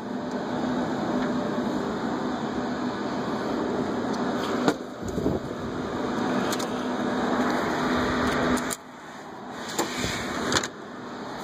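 Cooling fans of rack-mounted Dell PowerEdge servers, a SAN and network switches whirring steadily with a low hum, the cabinet's front soundproof doors open, so quite a bit louder than when closed. A few clicks, and the whir dips for about two seconds near the end.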